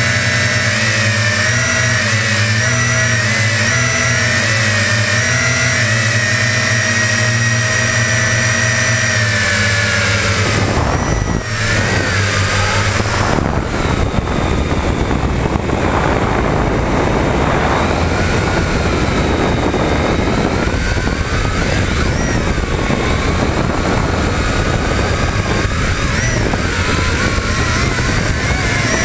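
Quadcopter's electric motors and propellers whining, recorded by a GoPro mounted on the craft. The whine holds a steady pitch for about ten seconds, then turns rougher and noisier, with a wavering pitch, as the quadcopter comes down.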